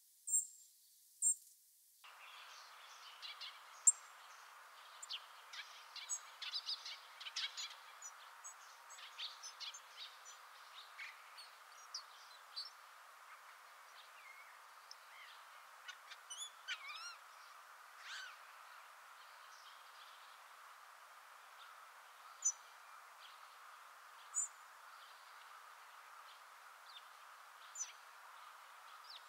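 Hawfinch giving short, sharp, high single call notes, spaced a second or more apart. From about three seconds in to about eighteen seconds in there is a quiet, rambling twitter of varied notes and slurs, the hawfinch's subsong.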